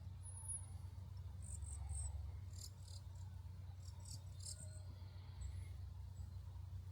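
Faint high-pitched, cricket-like chirping: short buzzy trills coming in a few groups, over a low steady rumble.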